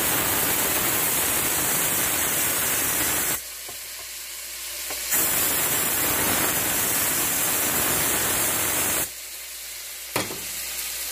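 Starfrit electric pressure cooker venting steam through its pressure release valve in a loud, steady hiss: a quick release of pressure once cooking is done. The hiss stops for about two seconds a little over three seconds in, starts again, and dies down about nine seconds in, with a single click a second later.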